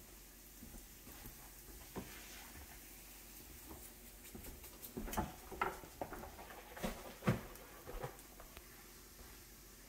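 A spoon clattering and scraping in a frying pan, a quick run of knocks about halfway through with the loudest one near the end, as flour is stirred into the fat to start a gravy.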